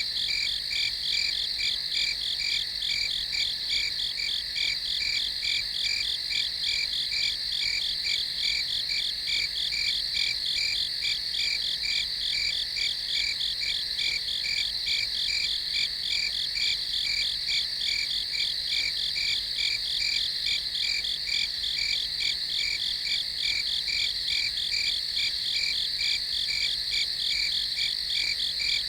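Night chorus of crickets chirping: a continuous high trill with a steady, evenly pulsing chirp about two or three times a second that never lets up.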